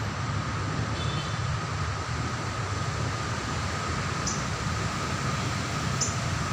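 Steady low rumble and hiss with a faint constant tone running through it, broken by two short, sharp high chirps from a sogon bird, about four seconds in and again near the end.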